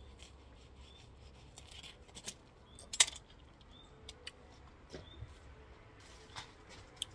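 Scattered small clicks and taps of eating jackfruit by hand, with a sharper click about three seconds in.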